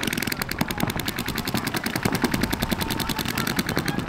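Paintball markers firing rapid strings of shots, a fast steady crackle of pops.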